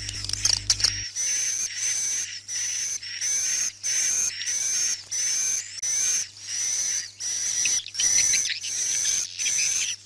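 Recorded swiftlet calls, a swiftlet-house 'night lullaby' lure track for indoor speakers: high twittering chirps in repeated bursts a little more than one a second, with short gaps, starting about a second in.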